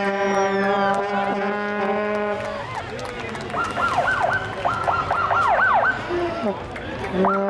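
Police sirens from the parade's escort patrol car and motorcycles: a steady multi-tone sound for the first couple of seconds, then rapid up-and-down yelp sweeps from about halfway through, starting again just before the end.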